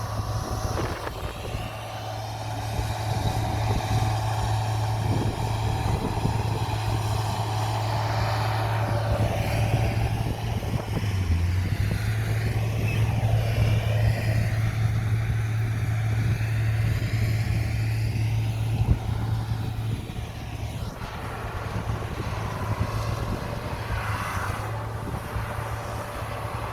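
Heavy diesel engine of a bulldozer running steadily with a low hum while it works, louder through the middle and easing off a little near the end.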